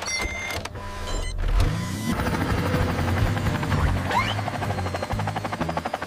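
Cartoon sound effects over background music: short electronic chirps at first, then from about two seconds in the fast, even chop of an animated helicopter's spinning rotor, with a couple of rising swoops.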